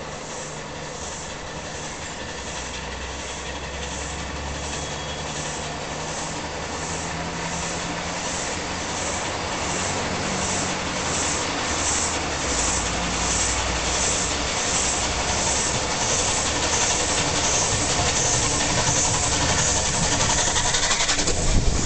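Southern Railway Lord Nelson class four-cylinder 4-6-0 steam locomotive No. 850 approaching under steam with a train. Its exhaust beats regularly about twice a second and grows steadily louder, with a sudden louder rush near the end as it comes close.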